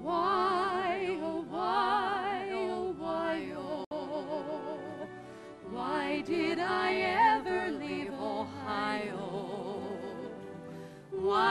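Two women singing a slow duet in Broadway style, in several long-held phrases with wide vibrato and short breaks between them.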